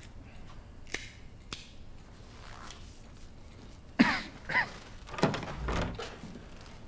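A couple of soft footsteps, then a door being handled and opened, with short creaks and thuds.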